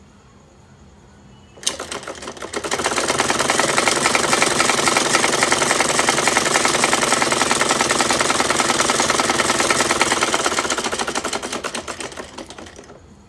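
USHA sewing machine stitching a straight seam through lace fabric: it starts with a click, speeds up to a fast, even run of stitches, then slows and stops near the end.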